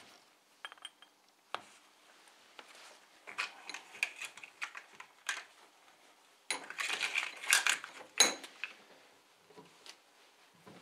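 Metal parts clinking and knocking as a steel idler pulley wrapped in a rag is handled and set into a bench vise with aluminium jaw covers. The clinks are scattered at first and come thicker and louder in the second half, with one sharp strike standing out.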